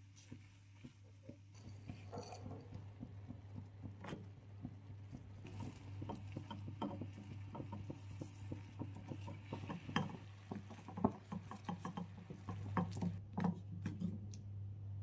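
Silicone spatula stirring and pressing blueberries cooking with sugar in a pan: soft wet squelches, scrapes and small pops that grow busier about halfway through as the berries cook down into a thick sauce, over a steady low hum.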